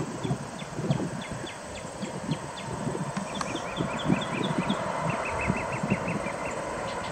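Outdoor airfield ambience: a low, uneven rumble from a distant taxiing twin-engine cargo jet, mixed with wind on the microphone. Short runs of rapid high chirps, about six to eight a second, sit on top.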